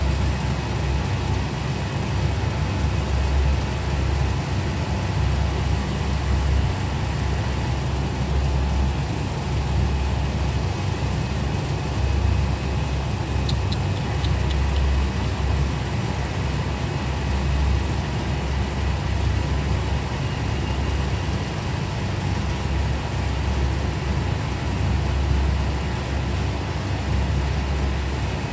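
Steady low mechanical rumble of a running engine, with a few faint quick clicks about halfway through.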